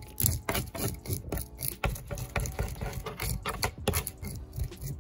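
A scaling tool scraping scales off a mangrove snapper in quick, irregular rasping strokes.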